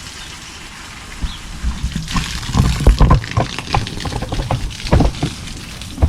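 Water pouring onto garden plants and soil, a steady hiss broken by irregular splashes and knocks. The loudest are a few low thumps about two and a half to three seconds in.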